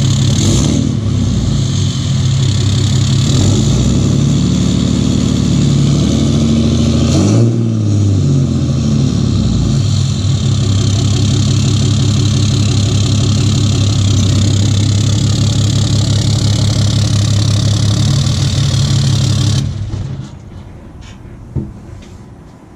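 6.7L Cummins inline-six turbo diesel in a Dodge Ram 2500 idling through its stock 4-inch exhaust tip. It is revved up and back down twice about four to eight seconds in, then idles steadily until it shuts off about twenty seconds in. A single knock follows shortly after.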